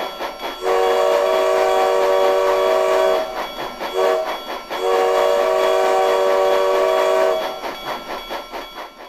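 Digitally reproduced multi-chime steam locomotive whistle from a Tsunami2 sound decoder, set up for a 4-6-6-4 Challenger. It blows a long blast, a short blast and a long blast, the close of a long-long-short-long grade-crossing signal, with a rhythmic beat from the running engine sound in the gaps.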